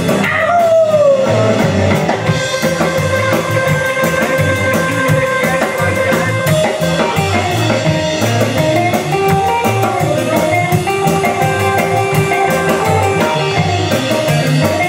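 Live rock and roll band playing an instrumental break: an electric guitar lead with bent and sliding notes over a steady drum beat and a walking bass line.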